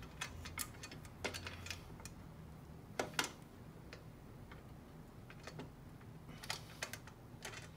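Scattered light clicks and taps of a bolt and chain guard being handled against the engine cover while the bolt hole is lined up, a dozen or so small knocks at uneven intervals.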